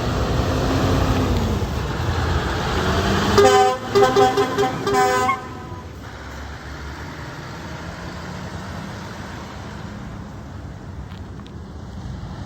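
Truck air horn blown in about five short blasts a little over three seconds in, the loudest sound here. Before it there is engine and road noise from a vehicle, and quieter traffic noise after.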